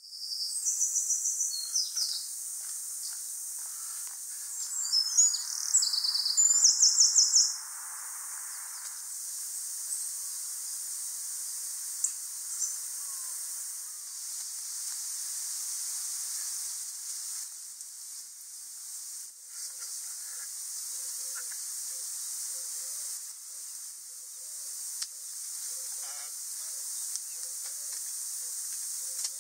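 Outdoor ambience: songbirds singing quick high trills about a second in and again from about five to seven and a half seconds in, over a steady high-pitched hiss.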